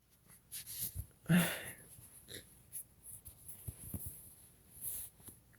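A person breathing in short, wheezy breaths between fits of sneezing brought on by Chhinkni sneezing powder. The strongest breath comes about a second and a half in, and smaller breaths and sniffs follow.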